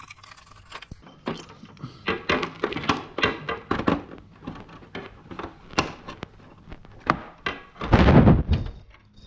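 The plastic lower fairing of a 2007 Yamaha R1 being worked loose by hand: a run of sharp clicks and knocks, then a louder dull thump near the end.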